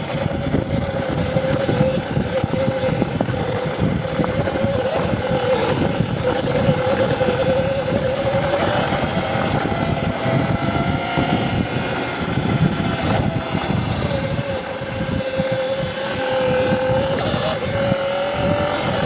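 Electric motor of a CZEM Drill One enduro e-bike whining while riding, its pitch drifting up and down with speed, over a steady rough low rumble.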